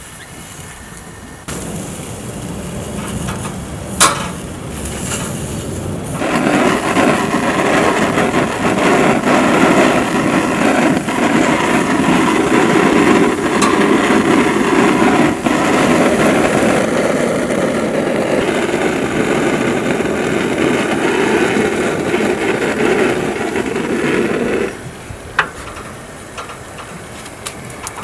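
Gas stove burner flame burning under whole tomatoes roasting directly on the grate, their skins sizzling and popping as they char. There is a sharp pop about four seconds in; the flame noise steps up louder at about six seconds and drops back near the end.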